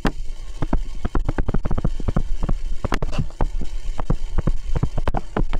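Stylus tapping and scratching on a tablet screen during handwriting: a dense run of irregular sharp clicks, several a second, over a steady low hum.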